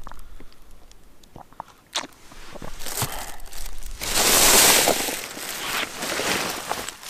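Thin plastic bag crinkling and rustling as it is grabbed and lifted, loudest about four to five seconds in, with a light knock about two seconds in.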